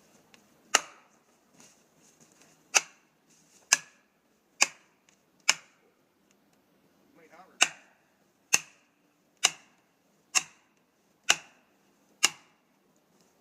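Heavy hammer blows driving a felling wedge into the cut of a tree, each strike a sharp crack with a short metallic ring. There are eleven blows about a second apart, in a run of five and then, after a short pause, a run of six.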